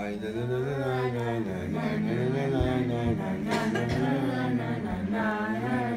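Several voices singing a Havdalah melody together without instruments, one held, wavering sung line after another. A brief knock about three and a half seconds in.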